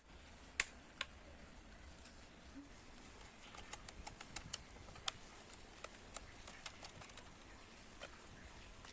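Two sharp clicks of a wall switch being pressed, about half a second apart, with no chirp from the bird-call doorbell: it is not working. Then a run of small plastic clicks and ticks as a screwdriver unscrews and handles the doorbell's plastic case.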